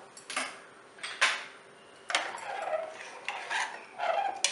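Metal spoon scraping and clinking against the inside of a metal pressure cooker pot while stirring mashed mango into jaggery syrup, in a series of separate strokes.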